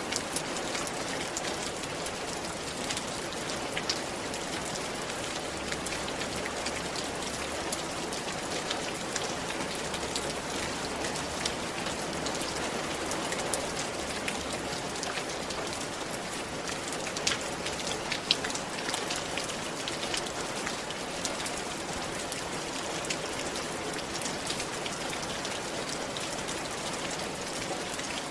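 Steady rain falling on a roof: an even hiss of rainfall with individual drops ticking sharply on top, a few louder drip impacts now and then.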